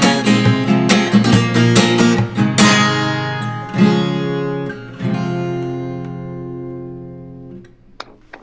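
Acoustic guitar played fingerstyle: a busy run of picked notes, then strummed chords, the last one left to ring and fade before it is damped. A few short sharp taps follow near the end.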